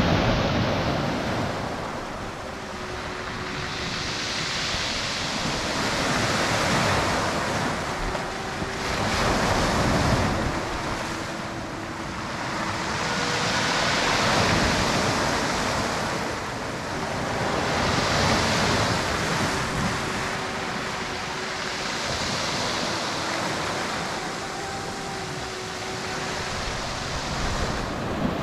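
Sea waves breaking and washing up over a pebble and rock beach, surging and ebbing every few seconds. Faint, short, drawn-out tones come and go underneath.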